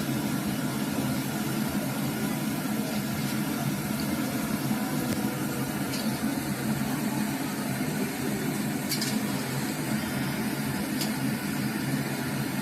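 Samosas deep-frying in a large pan of hot oil: a steady bubbling sizzle, with a few faint ticks.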